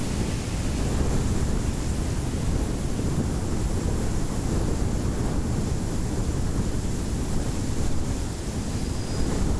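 Strong wind blowing through a bamboo forest: a steady, deep rushing noise.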